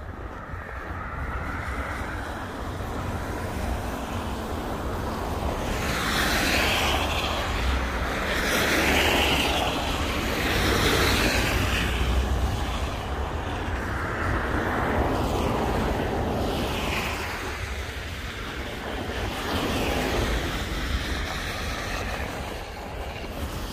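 Road traffic: cars driving past one after another, each one's tyre and engine noise swelling and fading, over a steady low rumble.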